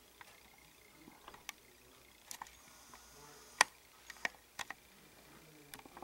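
Scattered, irregular light clicks and taps, with one sharper click about three and a half seconds in.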